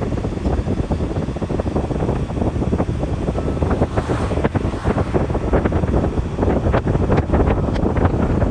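Wind buffeting the microphone of a phone filming from a moving car, a dense rushing, fluttering noise over the car's road noise.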